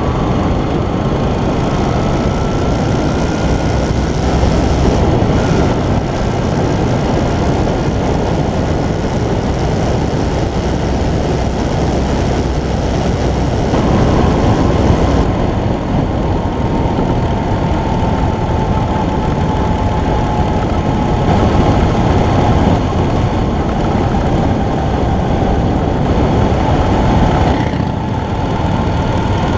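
Yamaha Virago XV250's air-cooled V-twin engine running at a steady cruise, mixed with heavy wind rush on an onboard camera microphone. The level dips briefly near the end.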